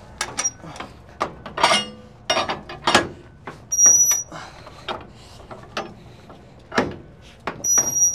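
Flatbed trailer strap winches being tightened: a run of sharp metal clicks and clanks from the ratchet pawls, with two short high squeals, one about halfway through and one near the end.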